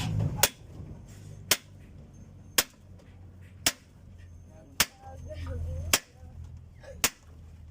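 Seven hammer blows struck at an even pace, about one a second, onto a wooden block used as a buffer while driving a cylinder liner in an Isuzu 4BC2 diesel engine block.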